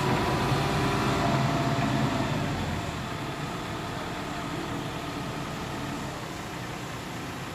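Hitachi ZX170W-3 wheeled excavator's diesel engine running, louder for the first couple of seconds, then dropping about two and a half seconds in to a quieter, steady run.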